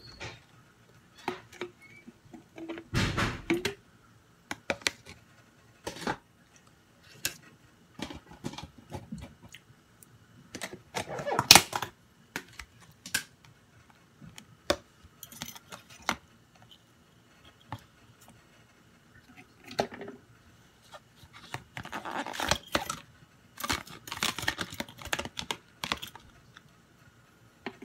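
Plastic food tubs and a plastic personal-blender cup handled on a countertop as fruit chunks are tipped into the cup: scattered taps, knocks and short rustles, loudest about twelve seconds in and again in a busy stretch near the end.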